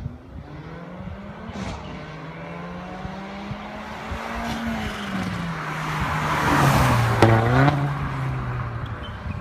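Mercedes-AMG CLA 45's turbocharged four-cylinder engine, breathing through an Fi Exhaust valved cat-back with catless downpipe, approaching and driving past. Its note grows louder to a peak about seven seconds in and drops in pitch as the car passes, then fades as it drives off.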